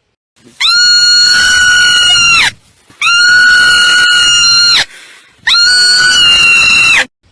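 Marmot giving three long, loud, shrill alarm screams, each about two seconds and held at a steady pitch before dropping off at the end.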